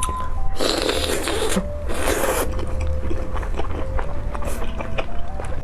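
Food being bitten and crunched, with scraping and many small clicks and two louder noisy crunching spells in the first half, over a steady low hum and a faint tune of held notes.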